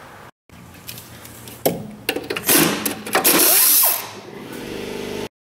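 Ratchet turning a brake fitting at a rear wheel cylinder: scattered clicks, then a louder stretch of rapid mechanical noise from about two to four seconds in.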